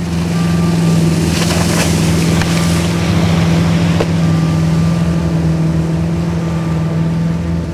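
Wakeboard tow boat's engine running with a steady low hum, under the rush of water and wind on the microphone, which is loudest about one to three seconds in.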